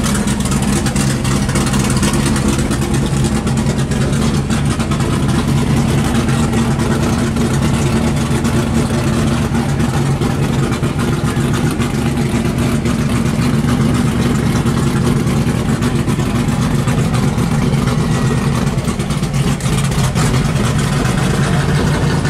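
Engine of a pro-street C1 Chevrolet Corvette idling steadily and loudly, holding an even note with no revving.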